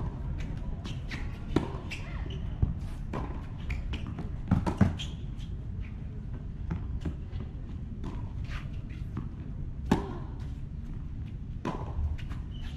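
Tennis ball being struck by racquets and bouncing on a hard court: sharp pops at irregular intervals, a quick cluster of them about halfway through and a loud one near the end, over a steady low rumble.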